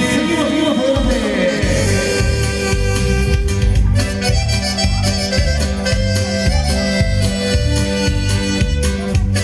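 Latin dance music with accordion, played back loud over a DJ sound system; the bass beat comes in about a second in and keeps a steady rhythm.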